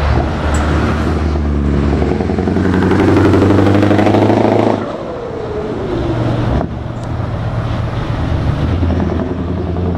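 Scania 164 580's V8 diesel on open pipes, pulling away under load. Its deep note climbs in pitch, breaks off sharply a little before halfway, then pulls again as the truck accelerates away.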